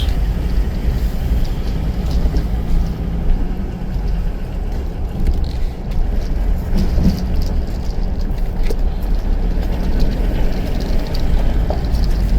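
A car driving slowly, with steady engine and road rumble.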